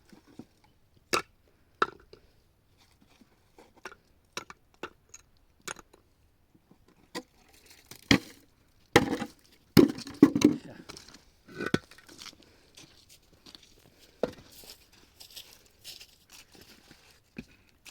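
Irregular handling noises: scattered sharp knocks and clicks, with a louder cluster of crunching impacts about eight to ten seconds in.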